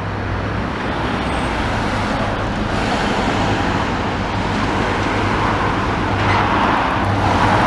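Road traffic going past in the street, a steady rush of tyre and engine noise over a low hum, swelling near the end as a car passes close by.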